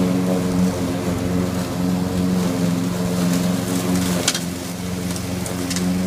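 Remote-controlled robot lawn mower running as it drives over grass, its motor giving a steady hum, with a few brief sharp ticks in the second half.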